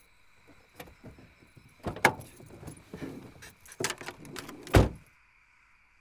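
Car door and keys being handled: clicks and a jangle of keys, a loud thud about two seconds in, and a heavy door slam just before five seconds.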